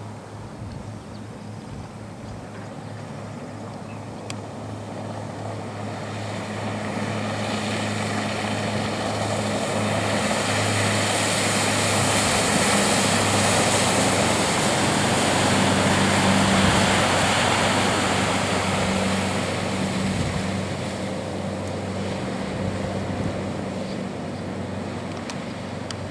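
Engines of a 33-foot Catalina flybridge cruiser running at speed, a steady low drone with the rush of spray and wake off the hull. The sound swells as the boat passes close, loudest a little past the middle, then fades.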